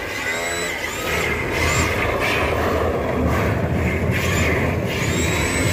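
Radio-controlled drift cars running on the track, their electric motors whining in repeated high-pitched revs that rise and fall as the throttle is worked, over a steady background noise.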